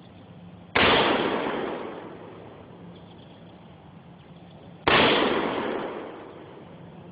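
AR-15 rifle fired twice in slow, deliberate single shots about four seconds apart, each shot followed by a fading echo lasting over a second.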